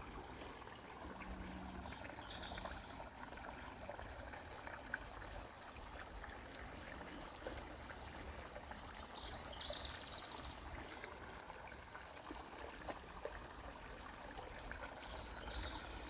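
Shallow creek trickling over rocks, a steady soft water sound. A small bird gives a short high trilled call three times: about two seconds in, about halfway through, and near the end.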